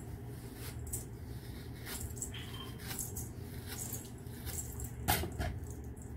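Plastic comb scratching and rustling through short natural hair in short strokes, with hands brushing the hair, over a steady low room hum; a sharper knock about five seconds in.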